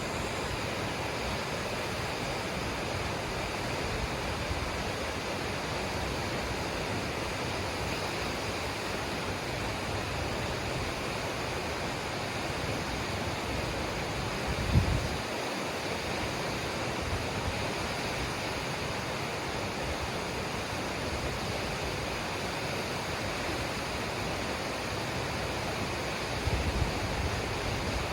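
Waterfall: a steady rush of falling water. A brief low thump comes about halfway through, and a few low bumps come near the end.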